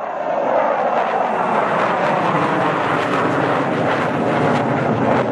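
CF-18 Hornet fighter jet's engines, a loud, steady rush of jet noise.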